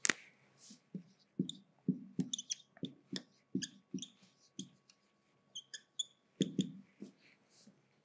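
Marker writing on a whiteboard: a string of short taps and scratchy squeaks as the words are written, opening with a sharp click.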